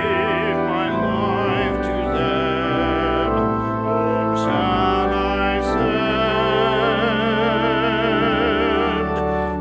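Classical-style singing with vibrato, long held notes over a sustained instrumental accompaniment: a musical piece in a church service.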